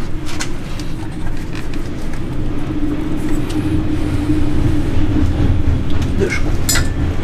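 A steady low mechanical drone of a machine running nearby, with a few light clicks of parts being handled.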